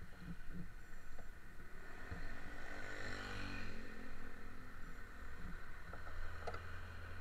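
Road traffic passing close by: a vehicle's engine swells and bends in pitch as it goes past around the middle, and a jeepney's engine hums low and close near the end, over a steady wash of traffic noise.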